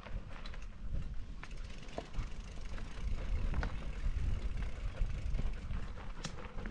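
Low wind and jostling rumble on a camera worn by a running dog, with scattered clicks and scuffs of paws, gravel and a mountain bike's tyres on a dirt trail.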